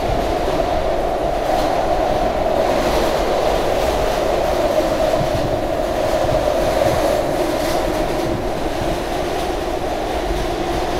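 SEPTA Market-Frankford Line M-4 subway car running at speed, heard from inside the passenger car: a steady rumble of wheels on rail with a constant mid-pitched drone.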